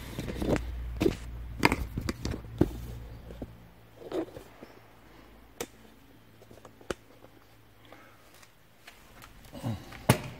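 Handling noise as a camera is set up: knocks, clicks and rustling, busiest in the first few seconds with a low rumble, then a few isolated clicks.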